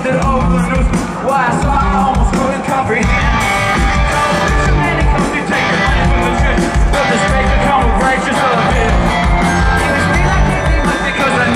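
Live rock band playing, with bass guitar and a steady drum beat under a male lead singer singing into a microphone.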